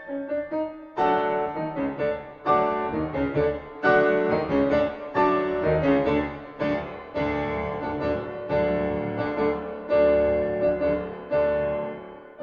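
Background piano music: a steady flow of struck chords and melody notes, each ringing briefly before the next.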